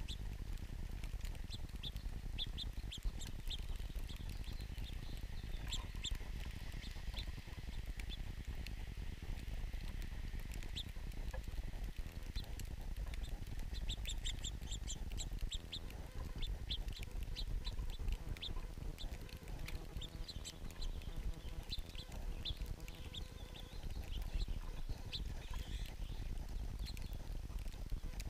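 Small songbirds chirping: many short, high chirps, often in quick runs of several, over a low steady rumble.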